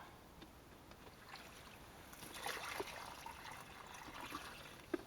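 Faint water trickling and splashing, picking up about two seconds in.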